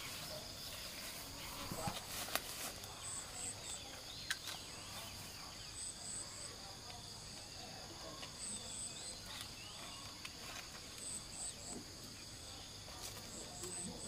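Insects shrilling steadily, with a short three-pip chirp repeating about every two and a half seconds. A few sharp clicks and rustles come from green Buddha's hand fruit being handled and set into a wicker basket.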